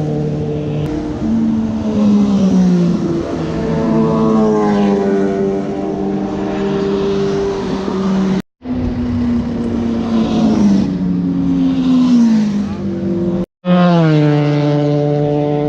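Motorcycle engine running at road speed, its pitch rising and falling as the throttle and gears change, over a rush of wind noise. The sound cuts out completely for a moment twice, about halfway and again near the end.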